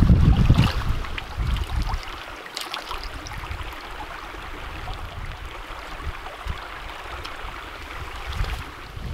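A small creek running over stones, a steady rush of water. Wind buffets the microphone for the first couple of seconds.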